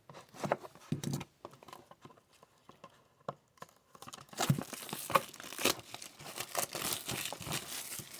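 Trading card packaging handled with a few light clicks, then torn open and crinkled from about four seconds in.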